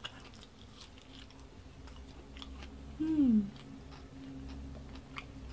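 A person chewing a bite of batter-fried tomato, with small scattered mouth clicks. About three seconds in, a short hum from the eater that falls in pitch.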